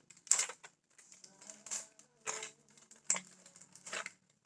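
Packaging being handled and opened by hand: about five short rustling, crinkling bursts with small clicks in between.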